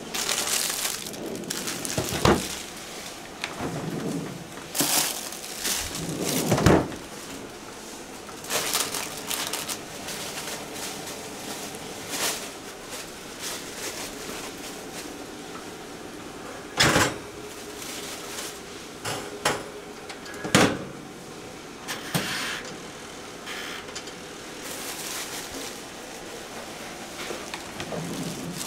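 Kitchen handling noise: scattered knocks and clunks, about half a dozen sharp ones, between stretches of rustling, as food and containers are taken from a refrigerator and moved about on a kitchen counter.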